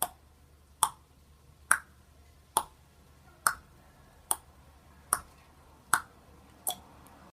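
A sharp click repeating at an even pace, a little faster than once a second, nine times, the last one weaker.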